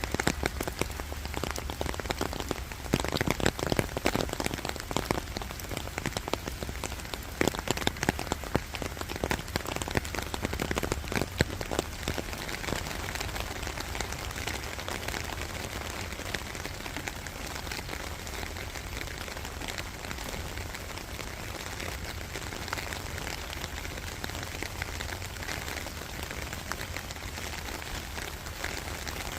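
Rain falling and drops striking a surface in a dense patter, with heavier, louder drop impacts during the first dozen seconds before settling into a steady patter.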